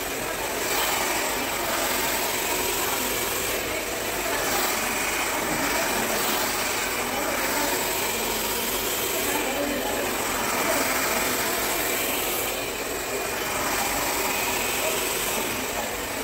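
Handheld hair dryer running steadily at close range during a blow-dry, its rushing air swelling and easing every few seconds as it is moved over the hair.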